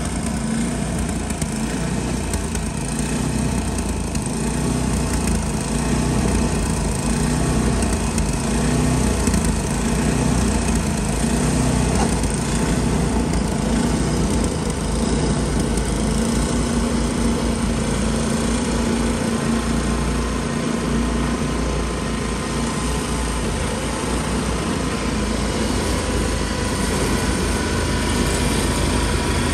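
Two walk-behind gas snowblowers running steadily, augering and throwing snow.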